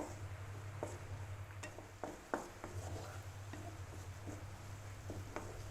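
A spoon stirring and scraping through an onion-and-spice mixture in a pan, knocking against the pan now and then, with a faint sizzle. A steady low hum runs underneath.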